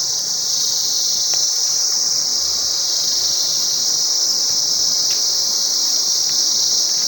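Cicadas singing in a steady, unbroken high-pitched buzzing chorus.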